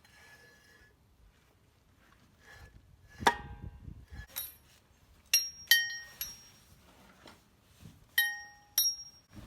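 Metal tool or parts clinking against metal, about seven sharp strikes spread over the second half. Several of them ring briefly at the same clear pitch.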